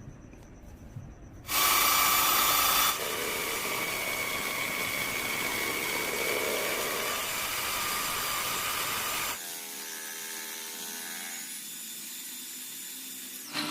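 Metal being machined with a power tool, in separate stretches: a loud grating burst about a second and a half in, then steady cutting noise with a thin whine, turning thinner and quieter about nine seconds in.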